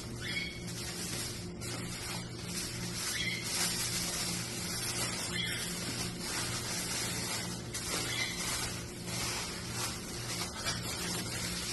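Aluminium foil crinkling and rustling in irregular bursts as pieces of chicken are wrapped and crumpled in it, over a steady low hum.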